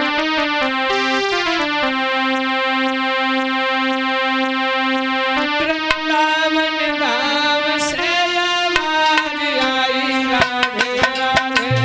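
Instrumental intro to a Hindi bhajan: long held keyboard-like chords, then a melody with pitch bends from about halfway, with percussion strokes such as tabla coming in near the end.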